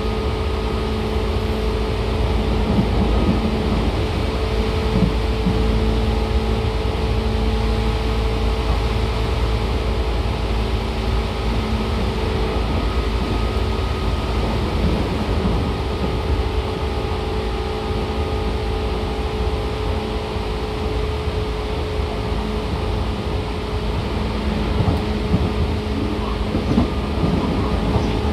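Seibu 2000 series electric train running, heard from inside the passenger car. There is a steady rumble of wheels on rail, with a hum of several steady tones from the traction equipment.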